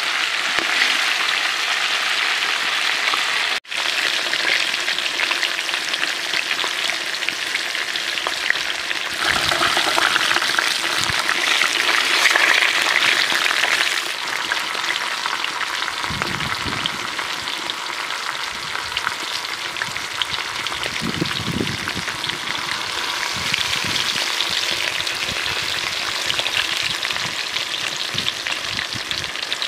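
Whole country chickens deep-frying in hot oil in a large pan: steady sizzling and crackling, louder for a few seconds in the middle, with a brief break about three and a half seconds in.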